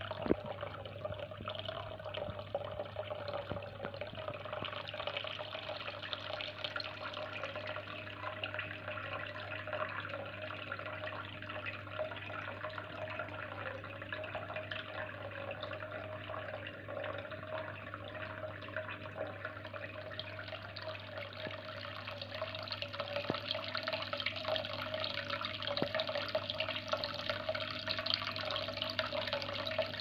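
Thin stream of water from a small tabletop waterfall falling into a glass fish tank: a steady trickle and splash, with a low steady hum underneath and one short click just after the start.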